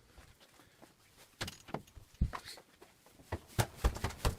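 Irregular knocks and clicks, as of wood and tools being handled at a workbench, starting about a second and a half in and growing louder near the end.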